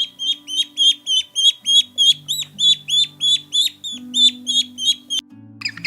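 A bird's high, repeated peeps, about three or four a second, each sliding down at its end, over background music with sustained low notes. The peeping stops about five seconds in, and a faster, harsher chattering bird call starts just before the end.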